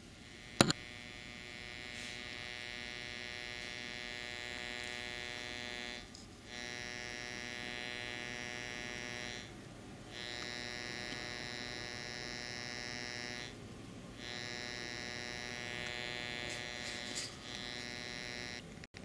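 Steady buzz from the soot deposit inside a car's exhaust pipe, set sounding by an LED flashlight's pulsing (PWM) light at the flashlight's PWM frequency: a photoacoustic effect. The buzz drops out briefly four times and comes back, and there is a sharp click about half a second in.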